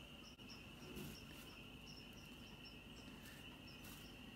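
Near silence: faint room tone carrying a steady high-pitched chirring, with a couple of faint soft taps as toast points are set on a bowl of soup.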